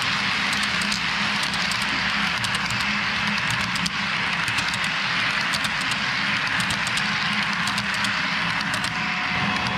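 HO-scale model freight cars rolling past on the track: a steady rumble with a low hum and clusters of quick sharp clicks as the wheels pass over rail joints.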